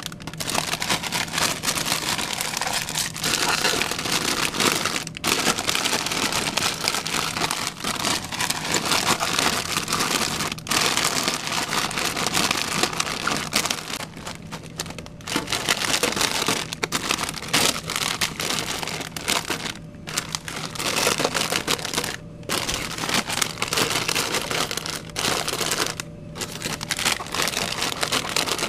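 Plastic chip bags crinkling as they are handled and pushed into the spiral coils of a snack vending machine, in a dense rustle with short pauses every few seconds. A low steady hum runs underneath.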